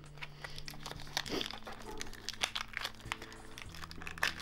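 Plastic shrink-wrap crinkling and tearing as fingers work it off a deck of game cards, in irregular crackles.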